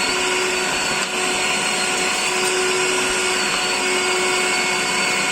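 Dustprom PP-220/15.1-1.5 industrial vacuum cleaner running steadily with an even rush of suction and a constant motor whine, briefly dipping about a second in.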